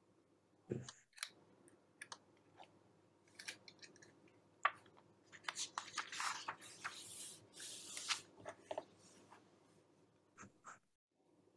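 Faint scratching and tapping of a pen stylus on a tablet screen as handwriting is erased, with scattered clicks and a denser run of quick scratches about halfway through.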